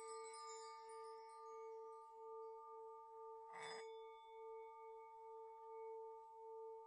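Faint bell-like ringing tone, its low hum wobbling slowly, struck again about three and a half seconds in, with brighter overtones that die away quickly.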